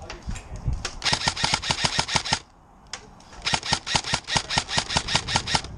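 Airsoft gun firing on full auto in two long bursts of rapid, evenly spaced shots, about ten a second, with a single shot between them; the second burst is the longer.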